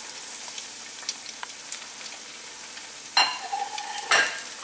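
Panko-breaded fish cake frying in hot oil in a grill pan: a steady crackling sizzle, with two sharp, ringing clinks about three and four seconds in.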